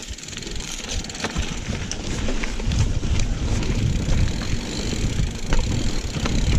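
GT Aggressor Pro mountain bike riding fast down a dirt singletrack: tyres rolling over packed dirt and leaves, wind rumbling on the camera microphone, and scattered clicks and rattles from the bike. The rumble gets louder about three seconds in as the pace picks up.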